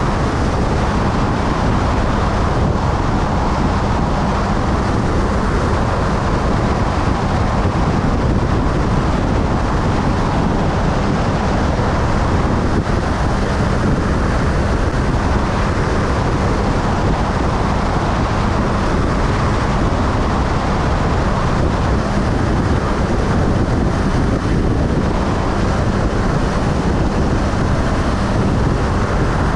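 Motorcycle cruising at a steady highway speed: wind rushing over the microphone, with engine and road noise underneath.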